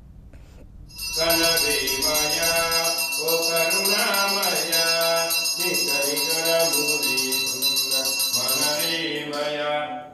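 Hindu devotional chanting sung over music, starting about a second in, with a steady high ringing tone above it that stops near the end.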